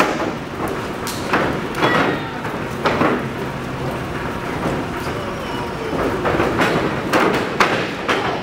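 Scattered thuds and knocks of wrestlers moving, stepping and striking on a wrestling ring, over a steady background rumble. The knocks cluster near the end.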